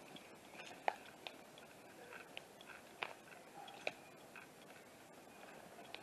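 Footsteps crunching over dry leaves, twigs and crumbled plaster debris, with a few sharper cracks and snaps under foot.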